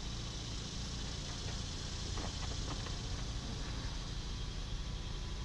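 Steady outdoor background of low rumble and hiss, with a few faint clicks about two to three seconds in as the wires are twisted together by hand.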